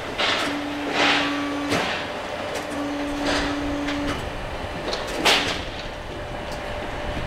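Steel fairground ride parts being handled during assembly: a run of separate metal clanks and bangs, about one a second. A steady hum sounds twice for about a second each, near the start and again midway.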